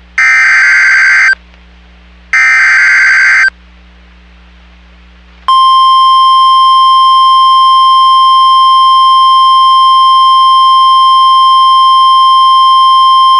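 Emergency Alert System tones from NOAA Weather Radio: two harsh, buzzing SAME data bursts about a second long, one at the start and another about two seconds later, which are the coded header for a new warning. About five seconds in, the steady 1050 Hz weather-radio alert tone starts and holds, signalling that a warning message is about to follow.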